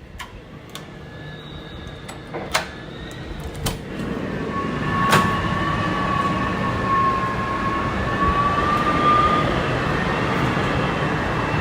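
Typhoon wind rushing and growing louder, with a wavering high whistle from about four seconds in and several sharp knocks in the first half.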